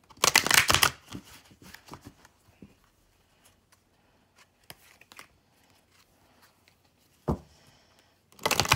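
A deck of oracle cards shuffled by hand: a loud rush of shuffling just after the start and again near the end, with soft card clicks between them and a single thump about seven seconds in.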